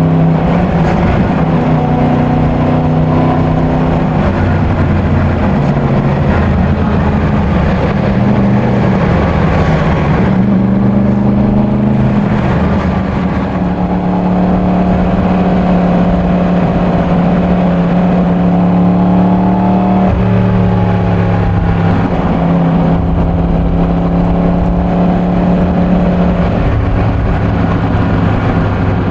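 Yamaha MT-10's stock crossplane inline-four running under way, ridden gently while it is being run in. The engine note holds steady for stretches, with its pitch shifting a few times. It steps down sharply about two-thirds through and climbs again near the end, over a steady rush of wind and road noise.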